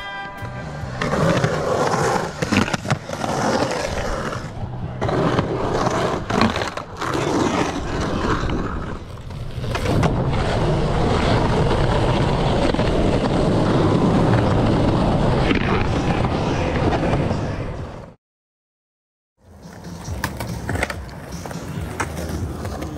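Skateboard wheels rolling loudly on concrete and asphalt, with sharp clacks and knocks of the board through the first half. The sound cuts out for about a second two-thirds of the way through, then rolling resumes more quietly.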